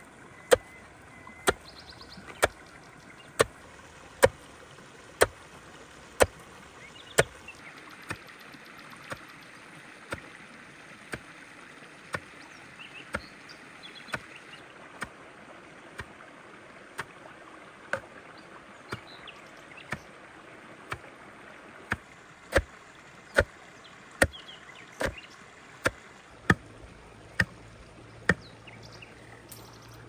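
Steady chopping knocks, one sharp strike about every second, coming a little faster and louder near the end.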